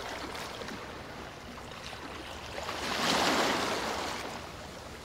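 Ocean surf washing up a sandy beach: a steady rush of water that swells to its loudest a little past the middle as a wave comes in, then eases off.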